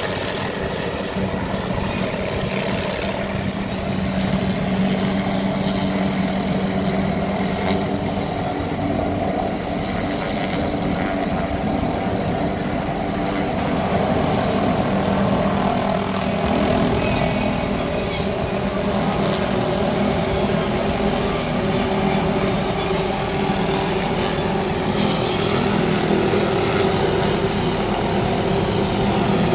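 Helicopter hovering and working slowly along a tree line with a suspended multi-blade circular-saw tree trimmer: steady rotor and engine drone with a held hum, getting a little louder about four seconds in and again about fourteen seconds in.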